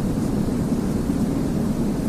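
Constant soft white noise for baby sleep: an even, unbroken deep rush, heavy in the low range with little hiss on top.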